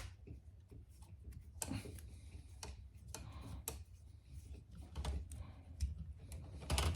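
Scattered light clicks and taps at an irregular pace as an electrical wall receptacle and its wires are handled.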